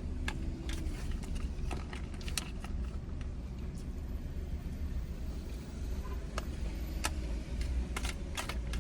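Steady low rumble with scattered light clicks and taps of a spoon and takeout food packaging during eating.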